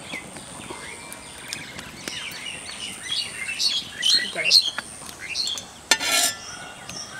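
Birds chirping and singing in quick, varied calls over light handling noise as hands coat fish pieces with turmeric on a plastic tray. A brief sharp sound comes about six seconds in.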